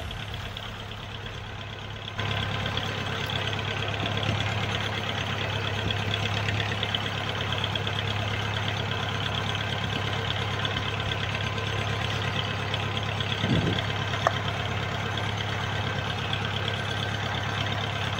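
A fishing boat's engine running steadily underway, a constant low drone with the rush of water along the hull. A brief knock sounds a little past halfway.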